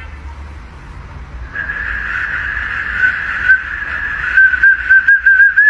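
A whistle being blown: one long, high, steady tone starting about a second and a half in, getting louder and wavering rapidly near the end.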